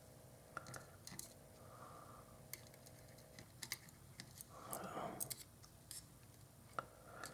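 Faint, scattered light clicks and ticks of a small screwdriver and tiny screws being fitted into a camera lens during reassembly, with a short rustle about five seconds in.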